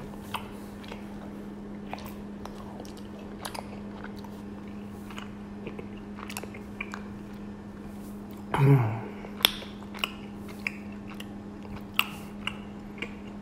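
Close-up mouth sounds of someone chewing raw honeycomb: soft, sticky chewing with small wet clicks, and one louder moment about eight and a half seconds in. A faint steady hum sits underneath.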